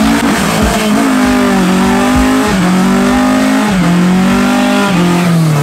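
Car engine held at high revs during a burnout, its pitch bouncing up and down repeatedly over the rushing noise of spinning tyres, then dropping near the end.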